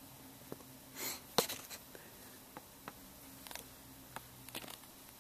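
Faint handling of a plastic Blu-ray case and a paper insert: scattered light clicks and taps, with a short rustle about a second in followed by a sharper click.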